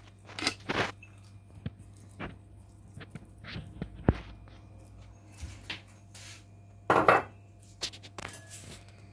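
Sparse kitchen handling sounds as the biryani pot is layered: a few light clinks, taps and soft rustles of utensils and dishes, the loudest a short clatter about seven seconds in, over a steady low hum.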